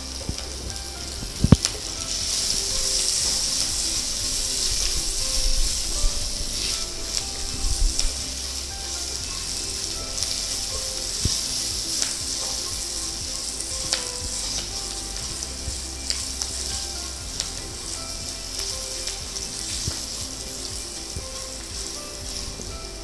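A South Indian tempering of mustard seeds, urad dal, curry leaves, ginger and green chillies sizzling steadily in coconut oil in a nonstick wok, stirred with a spatula, with a few sharp clicks. The dal is being fried until it turns reddish.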